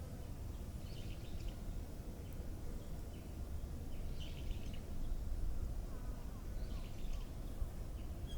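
A small bird calling in three short bursts of high chirping notes, about three seconds apart, with a few fainter gliding notes from another bird later on. Under it runs a steady low rumble of outdoor background noise.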